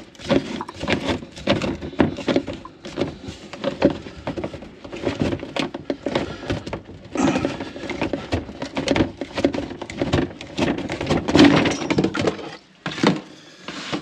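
Old push-fit plastic waste pipe being pulled and worked out through a hole in the wall under a sink: a dense run of knocks and scrapes of plastic against the wall and cupboard.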